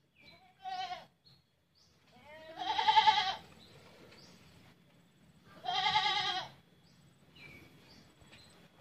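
Goat bleating three times: a short call about half a second in, then two longer wavering bleats around three and six seconds in, the one near three seconds the loudest.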